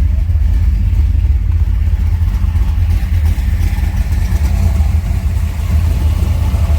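A 1979 Chevrolet Corvette's 383 stroker small-block V8 running through a Flowmaster exhaust, a steady low rumble.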